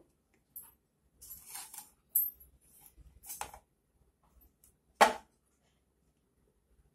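Glass cups on a ceramic plate being handled and moved: a few faint rustles and soft knocks, then one sharp click about five seconds in.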